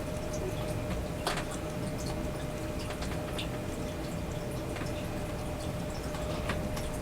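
Steady background hiss with a faint constant hum and scattered soft ticks, the clearest about a second in.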